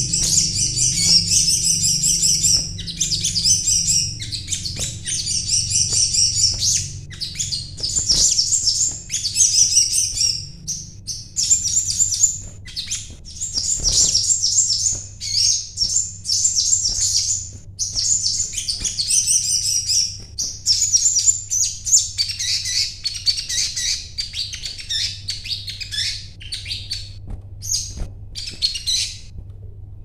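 Caged sogon (sogok ontong) bird singing in fast, high, chattering trills, phrase after phrase with only short breaks: the lively non-stop singing that keepers call gacor.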